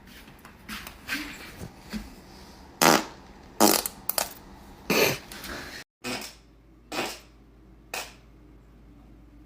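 A string of short farts, about ten in all, the loudest ones bunched near the middle.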